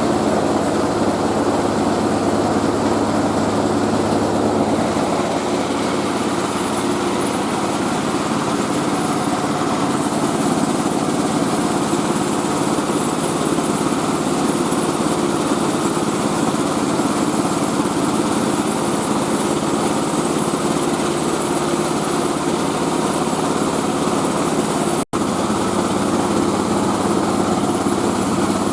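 Mobile rice-milling machine running steadily: its engine and milling mechanism make a continuous dense mechanical drone, cutting out for an instant near the end.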